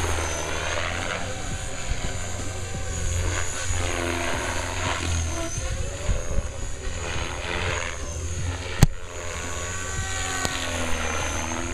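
Compass Atom 500 electric radio-controlled helicopter flying 3D aerobatics: rotor blades whirring and the drivetrain whining, the pitch sliding up and down as the model pitches, rolls and passes by. A single sharp click comes about nine seconds in.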